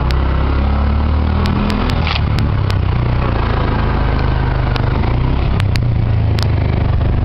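Three-wheeled mototaxi's small engine running steadily under way, heard from inside the cab, with scattered sharp clicks and rattles.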